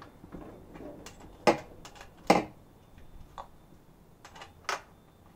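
A few sharp metallic clicks and knocks from the chain and guide bar of a Husqvarna 545 Mark II chainsaw being handled while its chain tension is set, so the chain just touches the underside of the bar. The two loudest clicks come about a second and a half and two seconds in, with fainter ones later.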